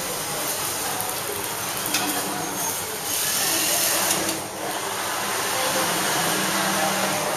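Industrial sewing machine running as fabric is fed under the needle, over steady background noise, with a louder hiss for about a second and a half around the middle.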